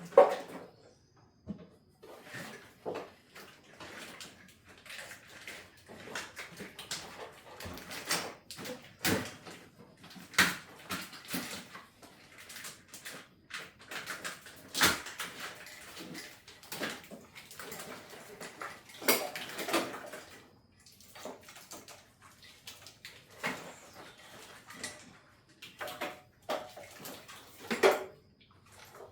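Irregular clicks, knocks and rustling of a car's engine wiring harness being worked free, with plastic connectors unplugged and wires pulled and handled. The sharpest clicks come right at the start, about halfway through and near the end.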